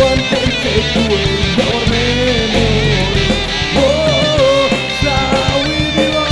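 Live rock band playing loud: distorted electric guitars, bass and drums with steady cymbal hits, and a singer's voice carrying the melody over them.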